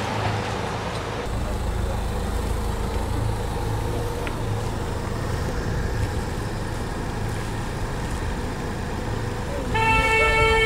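The Leopard 45 catamaran's diesel engines running steadily as the boat motors out of its slip. About ten seconds in, a loud horn blast starts and holds one steady pitch.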